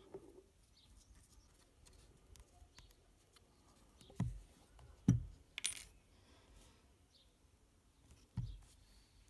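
Small knocks and clicks of hands handling a vape box mod and its rebuildable atomizer: a few sharp taps about halfway through, another near the end, and faint ticks between.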